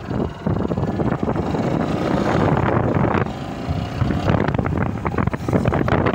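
Wind rushing and buffeting over the microphone of a moving motorcycle, with the bike's engine running underneath. It gets much louder a moment in, as the motorcycle pulls away and picks up speed.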